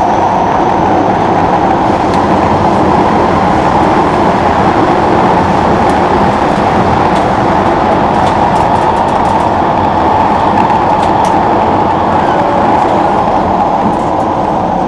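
Singapore MRT electric train running at speed through a tunnel, heard from inside the carriage: a loud, steady rumble with a mid-pitched drone over it.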